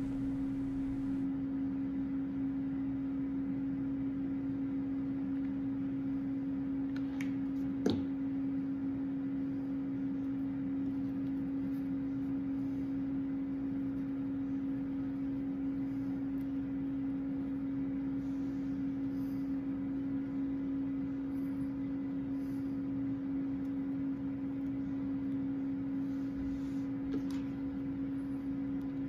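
A steady low machine hum, one held tone with a fainter overtone above it, with a short click about eight seconds in.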